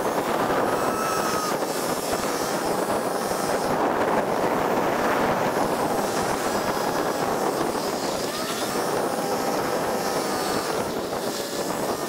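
A vehicle driving along a gravel lane: steady tyre and road noise with wind on the microphone.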